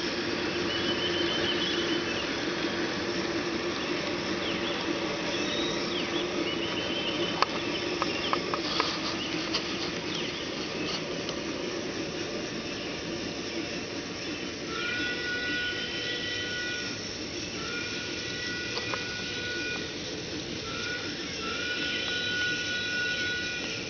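Large-scale Bachmann K-27 model steam locomotive's train of loaded flatcars rolling past on garden track, with a steady running hum that fades out and a few wheel clicks. Later, from farther off, the locomotive's steam whistle sounds four times, long, long, short, long: the grade-crossing signal.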